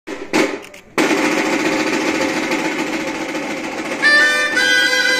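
Snare-drum tamboril playing a roll from about a second in. About four seconds in, two gaitas (small double-reed shawms) come in with a shrill melody in two parts over the drum.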